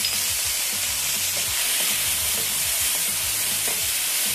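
Beef and onion sizzling in a very hot frying pan over high heat: a steady hiss with scattered light clicks.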